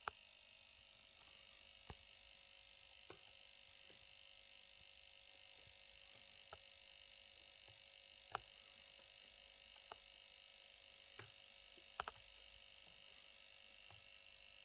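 Near silence: faint room tone with a steady low hum and about ten scattered soft clicks.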